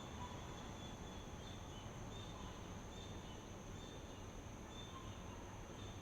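Faint natural outdoor ambience: a steady high-pitched insect drone with short, high chirps repeating about once a second over a low hiss.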